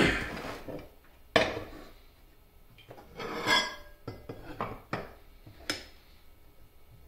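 Thin metal plates clinking and scraping against one another, the desk and a wooden block as they are picked up and fitted together: a sharp clank at the start, another about a second and a half in, a scraping shuffle around three and a half seconds, a few light knocks, and one last clink near six seconds.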